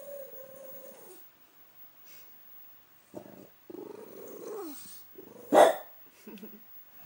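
French bulldog making strange vocal noises: a held whine for about a second, then after a pause a run of short whining and grumbling sounds, one sliding down in pitch, with one short loud bark about five and a half seconds in.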